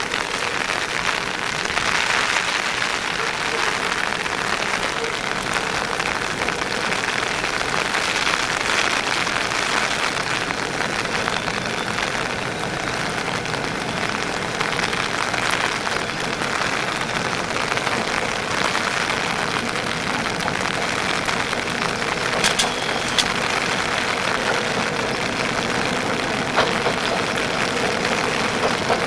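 Steady hiss of falling rain, with a faint steady tone running underneath.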